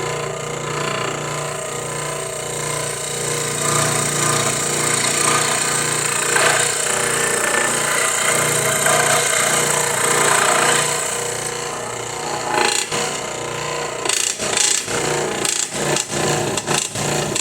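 Electric scroll saw running, its reciprocating blade cutting through a thin piece of wood. Over the last few seconds the cutting sound turns choppy and uneven, with repeated short breaks.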